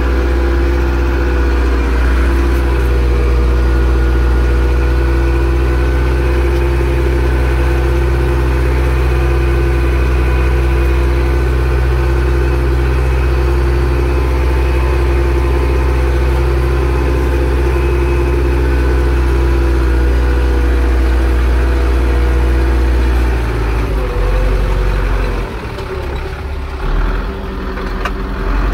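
Zetor 6245 tractor's four-cylinder diesel engine running steadily under load while pulling a plough. Near the end the engine note drops and turns quieter and less even.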